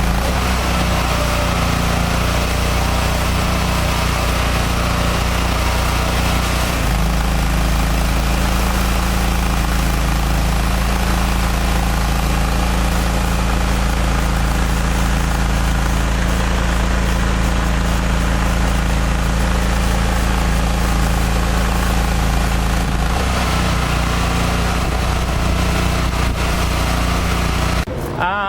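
Air-cooled 30 hp Kohler engine of a hot-water pressure washer running steadily under load, with a loud, even drone. The drone shifts slightly twice and cuts off abruptly near the end.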